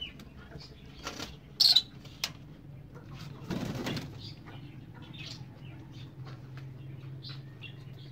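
Backyard coop birds: a short flurry of flapping wings about three and a half seconds in, after a few sharp knocks, the loudest about two seconds in. Faint chirps sound over a steady low hum.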